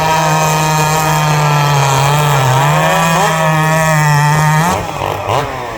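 Racing chainsaw from the Hot Saw Limited class running flat out at a steady high pitch. The pitch sags slightly midway, and the saw cuts off sharply near the end, leaving quieter saw engines revving up and down.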